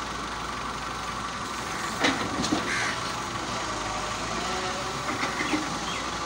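Volvo EW145B wheeled excavator's diesel engine running steadily as the machine digs and swings soil into a trolley, with a sharp knock about two seconds in.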